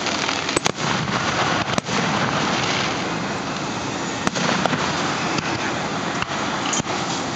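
Aerial fireworks shells bursting overhead: several sharp bangs at irregular intervals over a continuous noisy background.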